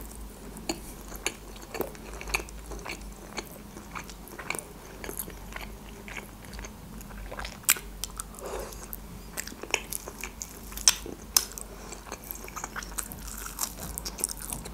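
Close-miked chewing and biting of grilled chicken, with many short wet mouth clicks and smacks at an irregular pace.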